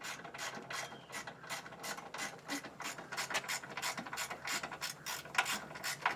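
Hand ratchet wrench clicking in a quick, steady run of strokes, about four to five clicks a second, as bolts on the car's body panels are worked loose.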